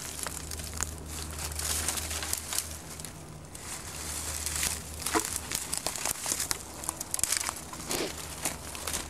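Dry twigs, brush and dead leaves crackling and snapping as someone pushes through a thicket, with branches scraping against clothing and many irregular sharp snaps. A steady low hum runs underneath.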